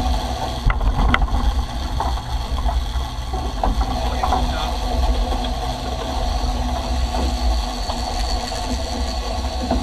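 A trailer boat's engines running steadily underway while trolling, with the rush of the wake water behind.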